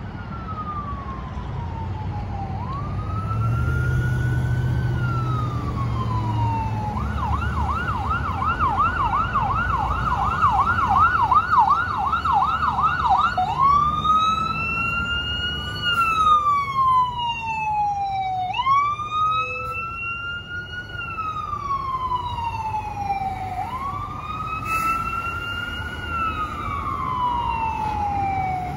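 Fire engine siren on an emergency response, sounding a slow rising-and-falling wail, switching to a fast yelp about seven seconds in, then back to the wail about six seconds later, over traffic and engine rumble.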